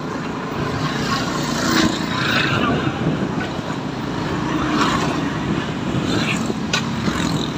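Steady road traffic noise heard while riding along a busy city road: engines and tyres.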